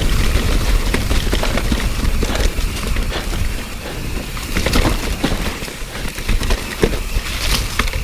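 Mountain bike descending fast over a rocky trail covered in wet leaves: steady wind rumble on the camera microphone, with tyres rolling through leaves and frequent knocks and rattles as the bike hits rocks.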